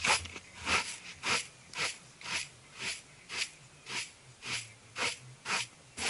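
Straw broom sweeping a carpet: even, swishing strokes, about two a second.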